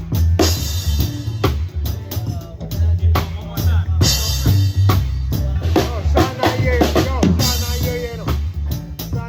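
Live band playing, led by a drum kit with kick, snare and rimshots and cymbals on a steady beat, over a heavy low bass part; a pitched instrument or voice comes in over it about two-thirds of the way through.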